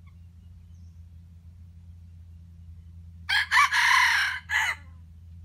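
A red junglefowl rooster crows once, about three seconds in: a short opening note, a long middle part and a clipped final note, lasting about a second and a half. A faint steady low hum runs underneath.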